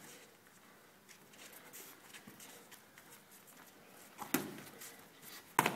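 Boxing gloves striking Thai pads: two sharp slaps near the end, the second a quick double hit.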